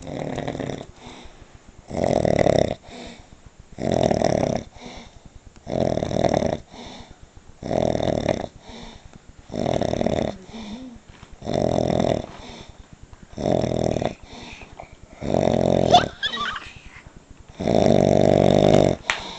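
A sleeping person snoring in a steady rhythm, one snore about every two seconds, the last one longer.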